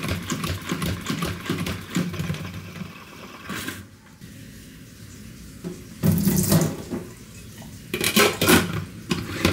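Push-button pump salad spinner being pumped, its plastic basket whirring as it spins water off washed lettuce for about three and a half seconds. Shorter clattering bursts follow near the middle and end as the lid and basket are handled.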